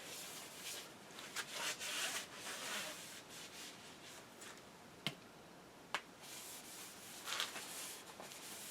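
Faint rubbing strokes of cleaning the lathe bed, with two short sharp clicks around the middle.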